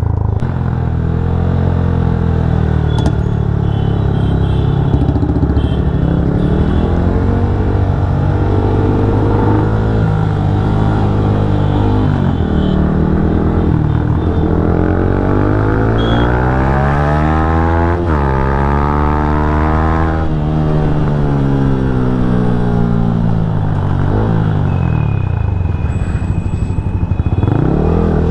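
Yamaha MT-15's single-cylinder engine running while the motorcycle is ridden, its pitch rising and falling again and again with the throttle and gear changes.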